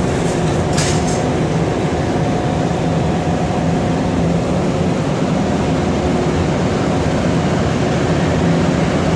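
Montreal Metro MR-73 rubber-tyred subway car heard from inside while running: a steady, loud rumble with a held whine that sounds like a jet engine.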